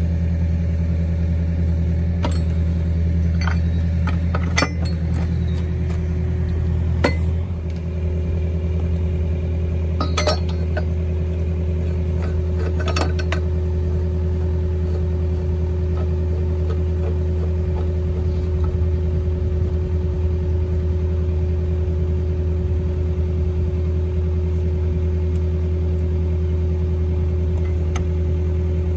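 Engine of the hydraulic power supply running the Pipe Ram directional drill steadily. A series of sharp metal clinks comes in the first half, as the machine and its pipe pieces are handled, and a steady whine joins after several seconds.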